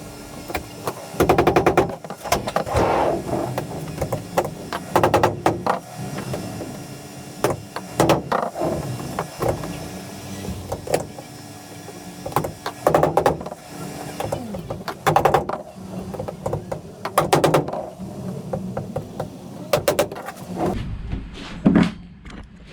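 Clusters of sharp knocks and clicks every second or two, over a steady low hum that stops about two-thirds of the way through.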